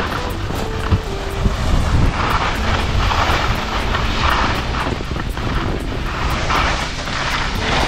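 Wind buffeting the microphone during a ski run, a steady rumble, with the hiss of skis sliding on snow that rises and falls every second or two through the turns.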